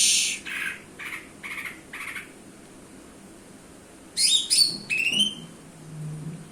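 Cucak ijo (leafbird) calling: a loud harsh note, then four shorter notes about half a second apart. After a pause comes a quick run of sharp whistled notes that glide up and down.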